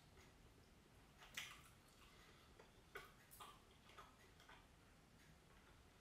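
Faint, scattered clicks and taps of a metal knife and fork against a ceramic plate, the loudest about a second and a half in, with a few more in the middle.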